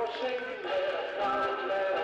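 Background music with a melody line over a steady accompaniment.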